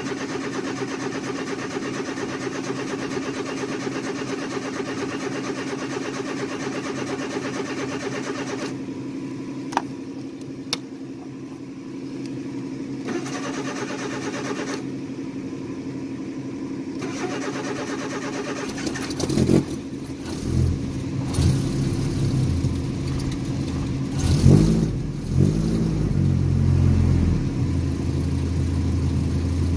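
Engine of a 1984 Nissan 720 pickup running steadily as it warms up after a cold start. Two sharp clicks come about ten seconds in. Past the middle the engine note wavers and dips a few times, then settles into a lower, steadier idle near the end.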